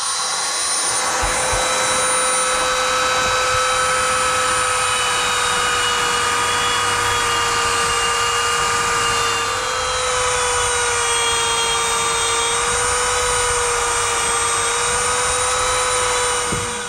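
Dremel rotary tool running at high speed with a steady whine as it cuts through the coiled metal outer sleeve of a motorcycle throttle cable.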